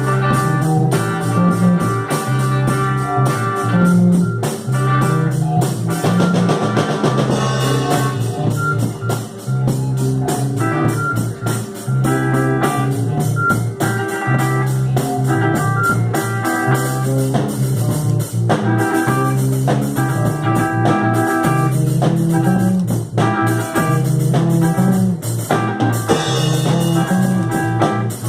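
A rock band playing an instrumental psychedelic funk jam: drum kit, electric guitars and synthesizer organ sounds over a repeating bass line.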